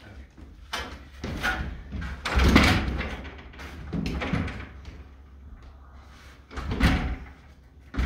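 A series of irregular knocks and thuds, loudest about two and a half seconds in and again near seven seconds, over a steady low rumble.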